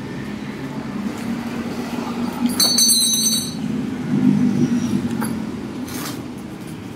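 Handling noise from unwrapping and fitting the parts of a new BMX bicycle, over a steady low rumble. There is a brief high squeak about two and a half seconds in, and a couple of light clicks near the end.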